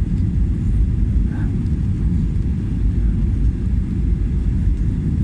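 Airliner cabin noise on final approach: a steady low rumble heard from inside the cabin.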